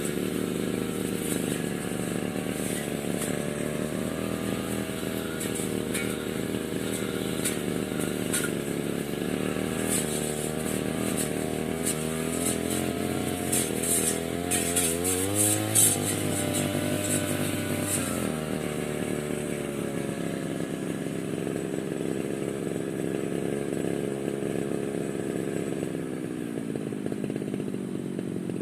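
Small-engine brush cutter (grass-cutting machine) running steadily, its engine pitch sagging and climbing with the throttle, dipping once more near the end. Sharp ticking crackles run over it for the first two-thirds and stop about eighteen seconds in.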